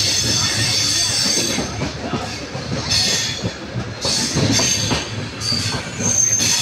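Passenger train running along the track, heard through an open coach window: a steady rumble of wheels on rail, with clattering knocks over joints and points and a high wheel squeal that comes and goes several times.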